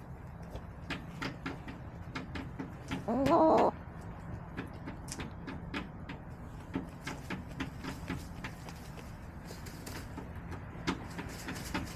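Backyard hens pecking and scratching at the coop floor litter, a scatter of small sharp clicks throughout, with one loud hen call about three seconds in, lasting under a second, over a steady low rumble.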